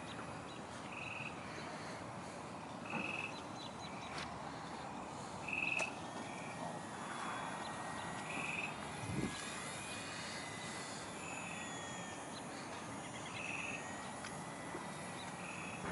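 Faint whine of a small electric radio-controlled airplane's motor, its pitch shifting as the plane flies around. Over it, a frog calls in short high notes every two to three seconds, and a single low thump comes about nine seconds in.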